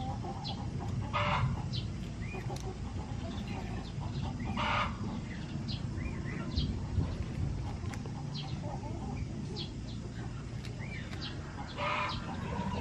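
Chickens clucking. Three louder, harsher calls come about a second in, near five seconds and near the end, over short high chirps that repeat about once a second.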